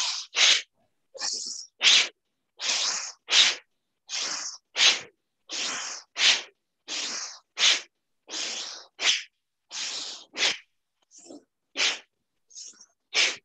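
A woman breathing forcefully and fast into the microphone in a pranayama lung exercise: about ten quick cycles, each a longer breath in followed by a short, sharp breath out, a little over a second apart, the last few in-breaths fainter.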